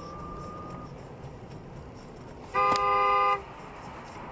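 Car horn sounding one steady blast of just under a second, a little past halfway through, over the low steady rumble of a car driving.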